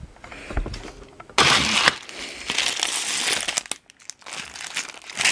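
Plastic packaging crinkling and rustling as it is handled, loud and busy with many small sharp clicks, with a short pause about four seconds in.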